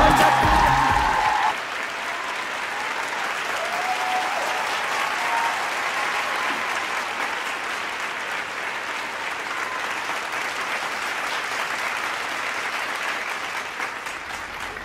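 Crowd applauding steadily. Music plays at the start and cuts off about a second and a half in.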